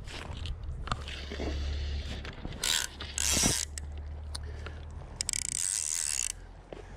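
Salmon fly reel's click-pawl ratchet rasping in three short bursts as line is worked off or onto the spool, the last burst about a second long, over a steady low rumble.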